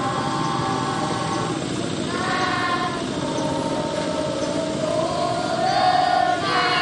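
A group of voices singing together in long held notes that change pitch every second or two, over a steady hiss.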